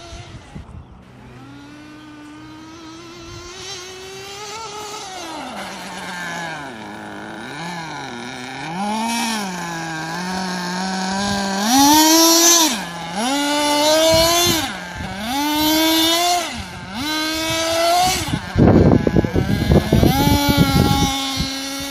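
Nitro RC truggy's small glow-fuel engine revving up and down as it is driven on loose sand. The pitch rises and falls with each throttle change and grows louder as the truggy comes close about halfway in. A loud, noisy crackling rush joins near the end.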